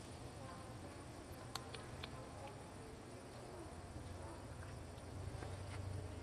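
A few faint, short clicks over a low steady hum and background noise.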